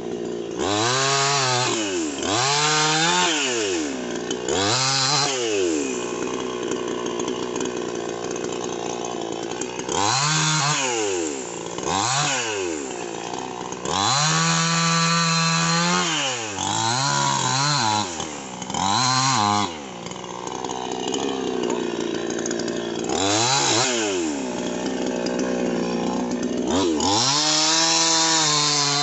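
Two-stroke New West chainsaw cutting rosewood branches, revving up again and again and dropping back to idle between cuts. Near the end it is held at high revs through a cut.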